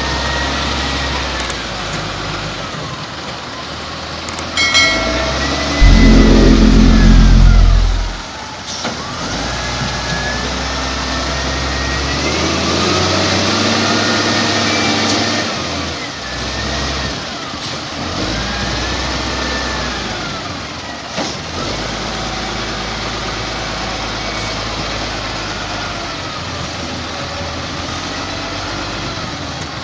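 XCMG LW300KN wheel loader's diesel engine working through its loading cycle, revving up and easing off again and again with a rising and falling whine as the bucket scoops and lifts soil. A loud low rumble comes about six seconds in and lasts about two seconds.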